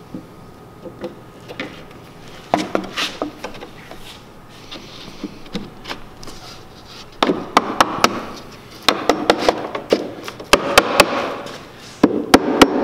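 Claw hammer tapping the top edge of an oriented strand board panel to seat its slot down into the mating panel of the building form: sharp wooden knocks in quick clusters, loudest near the end.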